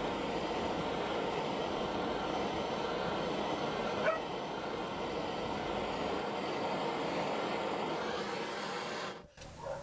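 Handheld gas torch flame hissing steadily while heating brass spoon blanks, cutting off about nine seconds in. A brief high squeak sounds about four seconds in.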